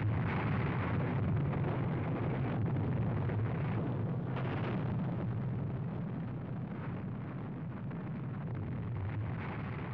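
Long, continuous low rumble of an atomic-bomb blast sound effect laid over nuclear explosion footage, easing off a little in the second half.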